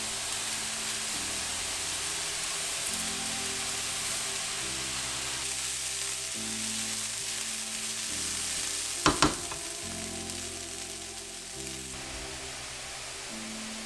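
Chopped vegetables sizzling in a nonstick frying pan as arborio rice is poured in and stirred to toast. The sizzle thins after about five seconds, and two sharp knocks sound close together about nine seconds in, over background music.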